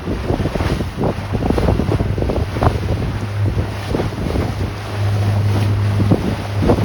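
Tour boat's motor running under way, a steady low hum that grows louder for a moment about halfway through and again near the end, with wind buffeting the microphone and water rushing past the hull.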